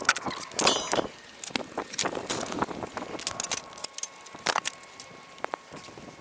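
Scattered clicks, knocks and light rattles of tools and wood being handled, with a short rattle under a second in.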